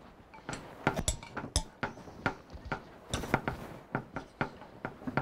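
Hands patting and pressing biscuit dough flat on a floured board: irregular light taps and knocks, several a second.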